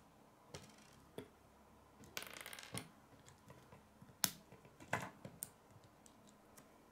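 Hard plastic K'nex pieces clicking and snapping together as connectors and rods are fitted onto a wheel, with a short rattling stretch about two seconds in and a sharp snap a little after four seconds, the loudest click.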